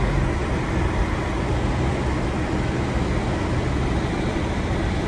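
Steady low rumble of a car's engine and tyres heard from inside the cabin while driving slowly along a snow-covered dirt road.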